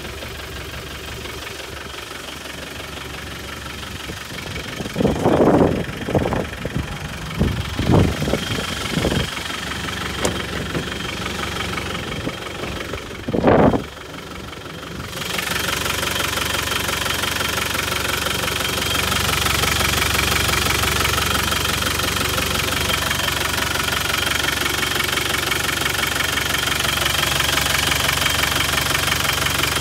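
Land Rover Defender's four-cylinder turbo diesel idling steadily with a rapid diesel clatter. The clatter grows louder and clearer about halfway through. Several loud thumps and knocks come in the first half.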